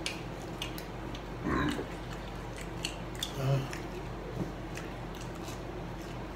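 Chicken nuggets being chewed, with scattered small sharp clicks of chewing and eating, over a steady low hum. There is a brief louder mouth sound about a second and a half in and a short low hum-like vocal sound about three and a half seconds in.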